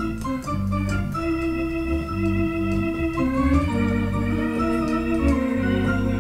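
Electronic keyboard played with both hands: held chords over a bass line that changes note every second or so.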